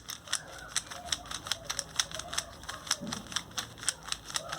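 Plastic 3x3 Rubik's cube layers being turned quickly and repeatedly by hand, a steady run of sharp clicks several times a second as one turning sequence is repeated many times over.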